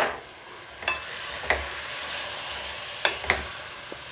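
Mutton pieces with tomato and green chilli sizzling in hot sesame oil in a pressure cooker pot, stirred with a wooden spatula that clicks against the pot five times.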